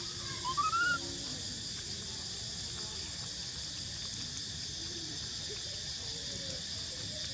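A baby monkey gives one short, high cry that bends up and then down, about half a second in, followed by fainter, lower whimpers. A steady high insect hiss runs underneath.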